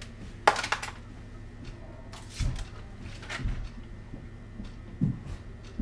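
Hands clearing electronics gear off a workbench mat: a brief rustle and scrape as a board with its wires is picked up, then a few soft knocks and thumps as things are set down.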